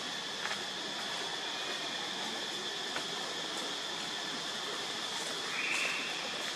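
Steady drone of forest insects with a constant high-pitched tone, plus a few faint clicks. A brief, louder high-pitched sound comes about five and a half seconds in.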